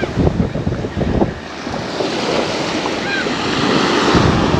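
Wind buffeting the microphone over the steady rush of surf, the rush growing louder about a second and a half in.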